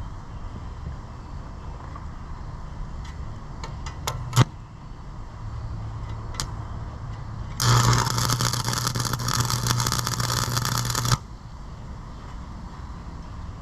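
MIG welder arc crackling for about three and a half seconds, starting and stopping abruptly, as a tack weld is laid on the steel plow mount. A sharp click comes a few seconds before it.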